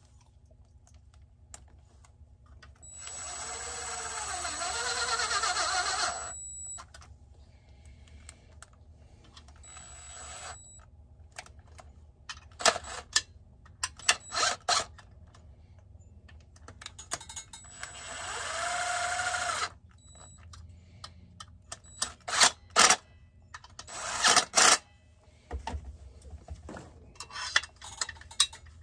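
Cordless drill/driver running in trigger pulls on a chainsaw: two longer runs of two to three seconds each, one about three seconds in and one in the middle, with the motor speed rising and falling, and a string of short blips between and after.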